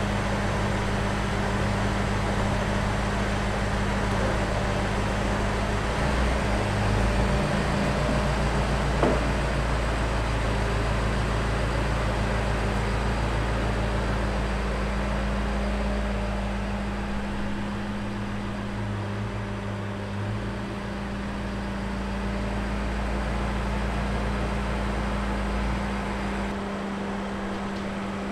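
BMW X5 M's twin-turbo V8 running steadily at low revs while the SUV is backed down off its ramps after an oil change, a constant low hum and rumble. The lowest rumble drops away near the end.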